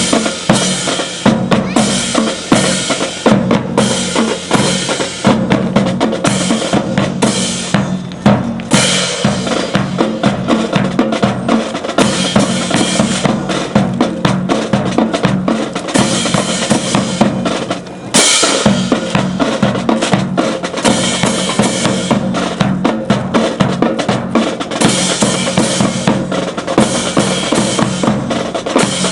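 Drum-led march music: snare and bass drum playing a fast steady beat over held low notes, breaking off briefly about 18 seconds in.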